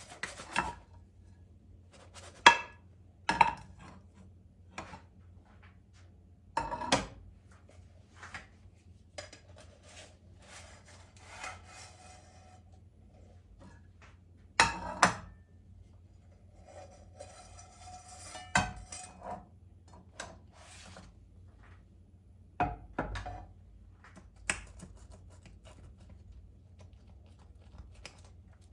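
Kitchen handling sounds while making pan börek: scattered clinks and knocks of utensils against dishes and a pan, some ringing briefly, with soft rustling between them.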